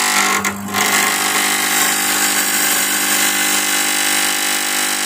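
A stage fog machine's electric fluid pump running: a loud, steady electric buzz with a hiss over it, with a short dip about half a second in. Liquid fog fluid is still being pushed out instead of all of it turning to fog, which the repairer suspects is a blockage or too weak a push.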